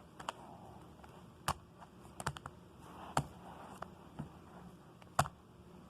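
Irregular light clicks and taps, about seven in all, from small hard objects being handled, with a quick cluster of three a little past two seconds in.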